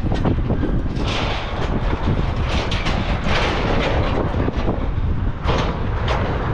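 Knocks and footsteps on the metal upper deck of a car-transporter trailer as someone climbs out of a car loaded on it: a few sharp thuds about one, three and five and a half seconds in, over a steady low rumble.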